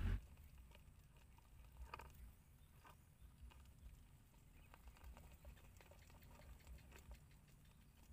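Near silence with faint, scattered light taps and scratches, a couple of them a little clearer about two and three seconds in.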